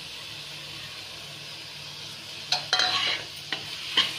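Spice masala sizzling steadily in oil in a kadhai. From about two and a half seconds in, a spatula stirs a ground peanut and spice powder into it, scraping and clicking against the pan.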